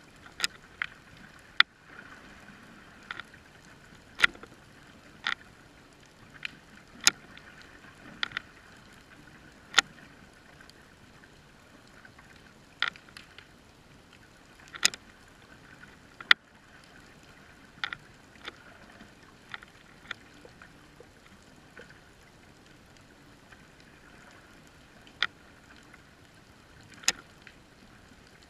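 Underwater sound picked up by a GoPro in its waterproof housing: a steady faint hiss with sharp, irregular clicks every second or two.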